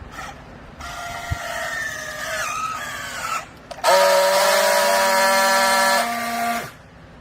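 Hydraulic baler machine running with a pitched mechanical whine. First a wavering whine, then after a short break a louder, steady whine that drops a little in level and cuts off sharply near the end.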